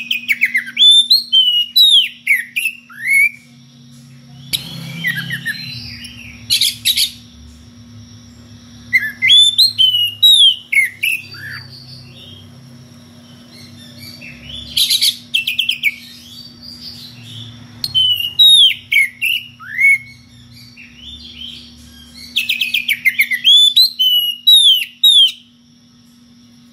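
Oriental magpie-robin singing loud, varied song bouts a few seconds apart: sweeping whistled notes mixed with rapid buzzy rattles. This is the full open song a male gives to challenge a rival. A steady low hum runs underneath.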